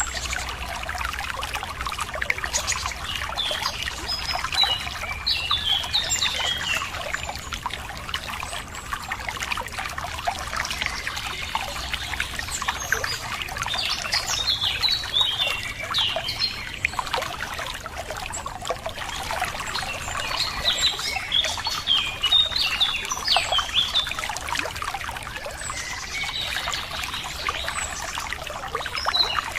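Water trickling and running steadily, with songbirds chirping over it throughout.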